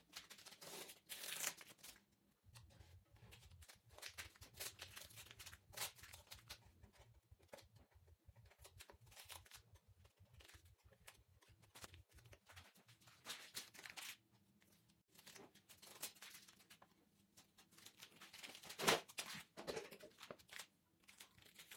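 Masking tape being peeled off a freshly spray-painted car grille while the paint is still wet, heard as faint, scattered rips and crinkles, with louder ones about a second in and near the end.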